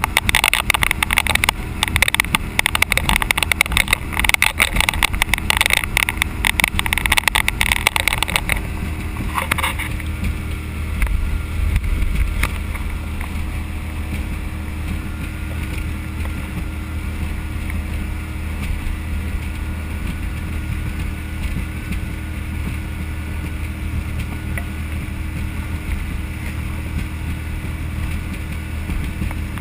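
Boat underway: a loud rush of water and wind for about the first eight seconds, then settling to a steady low hum of the running boat.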